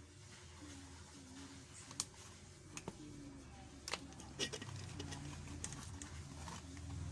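A handful of sharp clicks and taps, about five in all, spaced irregularly, over a low steady hum and faint voices in the background.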